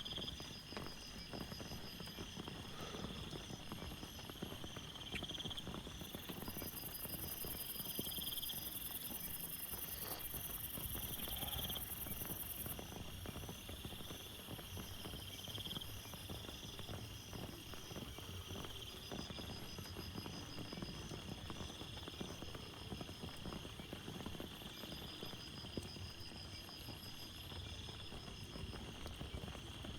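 Steady rain falling, with many individual drops tapping close by. High chirping calls repeat every two or three seconds over it, and a shrill high buzz joins from about six seconds in for roughly seven seconds.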